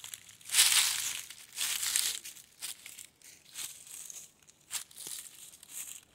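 Footsteps crunching through dry leaf litter: irregular steps, louder in the first two seconds and fainter after that.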